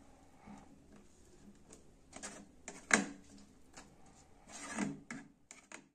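A black spatula stirring thick mince curry in a non-stick wok, scraping and knocking against the pan a few times. The sharpest knock comes about three seconds in, and a longer scrape follows near the end.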